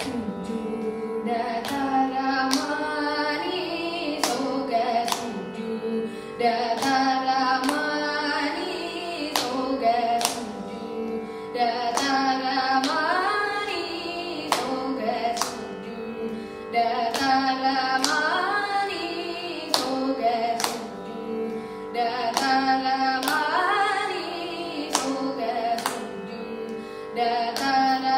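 A boy's solo Carnatic vocal in raga Kannada Gowla, with gliding, ornamented phrases over a steady drone. Sharp taps sound at a fairly even pace underneath.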